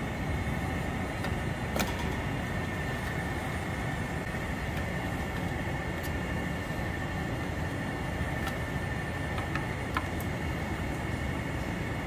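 Steady hum and faint whine from running air-conditioning outdoor units, with a few faint clicks as a plastic sensor connector and multimeter probes are handled.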